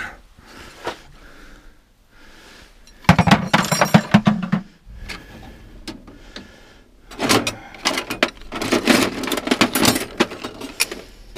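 Metal hand tools clattering and clinking as they are handled and packed into a box or bucket. The clatter comes in two spells, a short one about three seconds in and a longer one from about seven seconds in.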